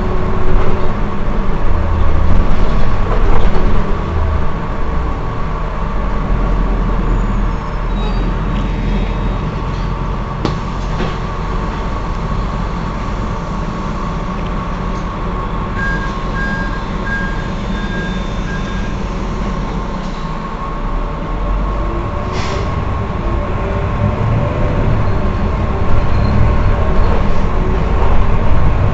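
Heuliez GX 327 city bus idling at a stop: a steady low engine rumble with a constant thin whine. About halfway through there is a string of five short beeps, and a brief hiss a few seconds later.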